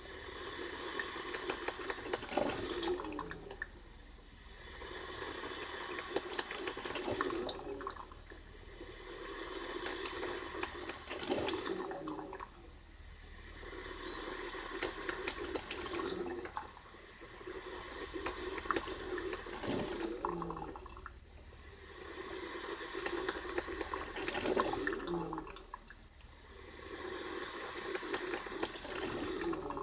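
Braun Type 4085 drip coffee maker brewing: hot water is pushed up to the filter in surges that swell and fade about every four seconds.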